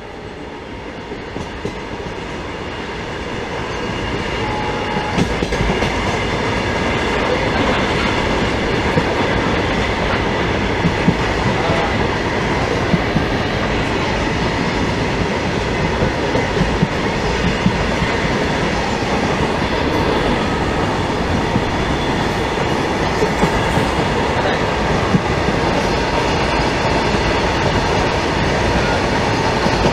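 Ride noise of an Indian Railways passenger train heard from on board: a steady rumble of wheels on rails with frequent clacks over the rail joints. It swells up over the first few seconds and then holds steady.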